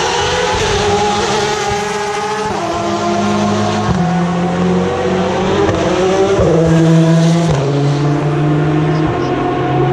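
Endurance race car engines going through a slow corner, more than one at once, their pitch holding steady and then stepping to a new pitch several times with gear changes.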